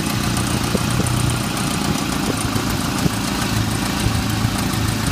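1993 Nissan pickup's 2.4-litre four-cylinder engine idling steadily, heard close up at the exhaust manifold. The exhaust is plainly audible, which the owner suspects is a leak right at the manifold.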